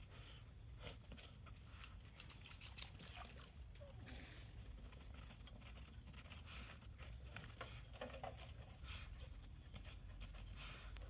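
Dogs digging at a rat hole: faint, scattered scrapes and patters of paws scratching in dirt.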